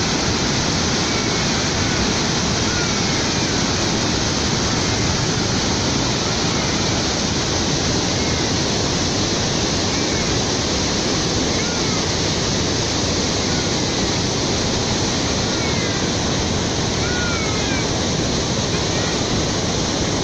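Rhine Falls, a large waterfall, rushing in a steady, unbroken roar of falling water.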